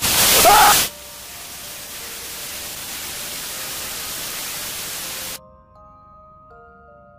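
Loud burst of TV-static noise with a brief rising squeal inside it, then steady static hiss that cuts off suddenly after about five seconds. Soft background music of short held notes returns near the end.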